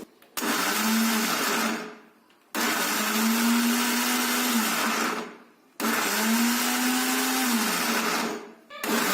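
Kitchen mixer grinder (mixie) run in short pulses, switched on and off four times, each run about two to three seconds with its motor pitch rising as it spins up and dropping as it stops. It is churning hard-frozen chocolate custard into soft ice cream, pulsed so the mix softens without turning runny.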